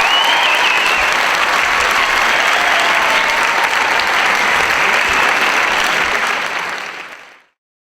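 Audience applauding loudly and steadily, fading out and stopping shortly before the end.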